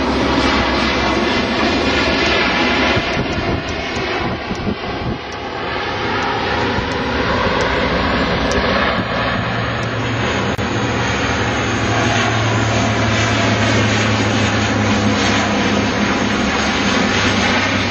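C-130 Hercules's four turboprop engines running loudly as it lands and rolls out along the runway, with a deep steady drone building about nine seconds in.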